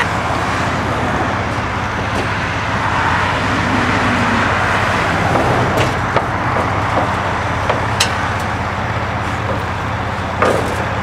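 Steady road traffic rumble from cars passing on the road, with a few short sharp knocks as steel light-pole sections are handled on a flatbed trailer.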